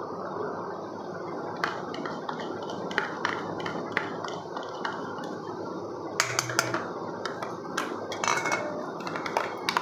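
Stainless-steel kitchen utensils clinking and knocking as a mixer-grinder jar, a spoon and bowls are handled, over a steady hiss. The clicks are scattered, and they come thicker from about six seconds in.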